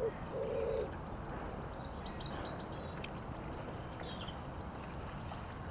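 Small songbirds chirping in short high calls a few times, over a steady open-air background hum. A brief low buzzy sound comes about half a second in.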